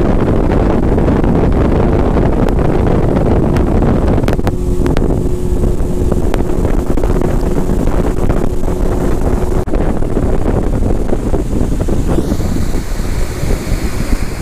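A boat running at speed across the water: the engine's drone mixed with heavy wind rumble on the microphone, with a steady hum through the middle of it.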